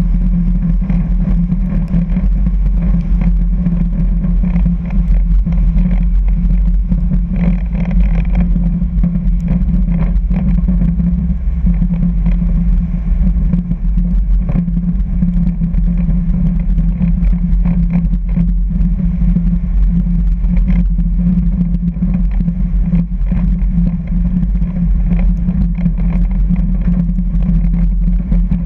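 Piper Cherokee's piston engine and propeller running steadily at low power as the plane rolls out and taxis. It is a loud, even drone heard from the tail.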